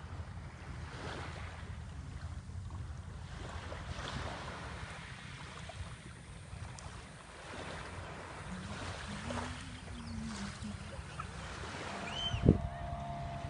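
Small sea waves washing on the shore, with wind rumbling on the microphone. A sharp knock near the end.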